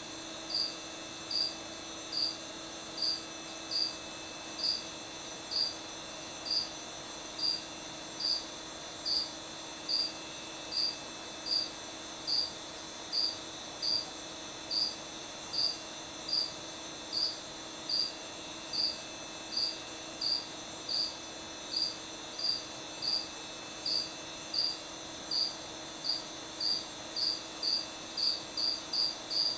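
A cricket chirping: single short, high chirps about once a second, coming closer together near the end, over a faint steady hum.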